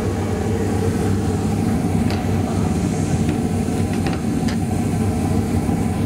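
A 2002 Carrier Infinity 75,000 BTU single-stage gas furnace firing, its three burners lit with the inducer fan running: a steady, jet-like rush, before the blower has come on. A few faint ticks sound over it.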